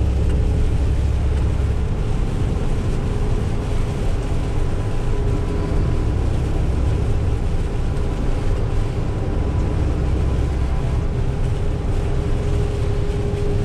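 Tow truck driving on a rain-soaked road, heard from inside the cab: a steady low engine and road drone, wet tyres on standing water, with a faint steady whine above it.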